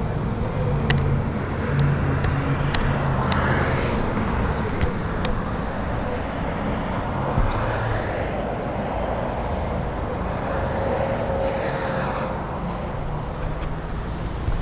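Car engine and road noise in traffic, with three swells as other vehicles pass.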